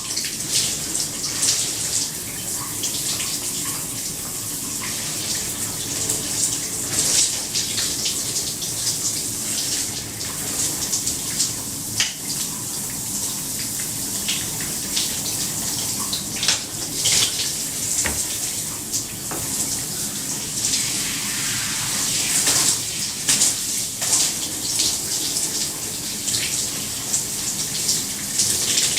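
Shower running steadily: a constant hiss of spray with irregular spattering as the water hits the surfaces below.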